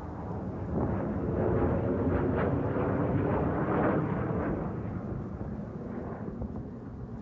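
Wind buffeting the microphone: a low, rumbling gust that swells about a second in and eases off after about four and a half seconds.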